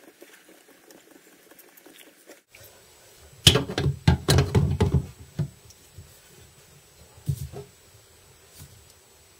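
Channel-lock pliers clicking and scraping on a sink drain's jamb nut as it is tightened: a quick run of sharp clicks and knocks a little past three seconds in lasting about two seconds, then a few more clicks about seven seconds in.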